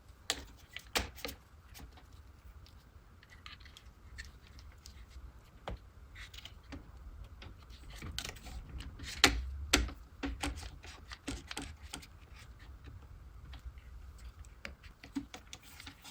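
Irregular light clicks and knocks of hand work on a wooden chair repair, with the loudest pair of knocks about nine to ten seconds in.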